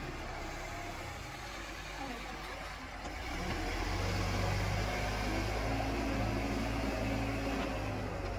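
Escorts Digmax backhoe loader's diesel engine running, rising to a louder, heavier run about three seconds in.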